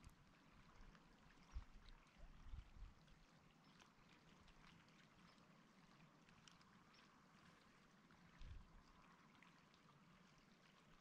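Near silence: faint outdoor ambience with a steady hiss, broken by a few soft low thumps.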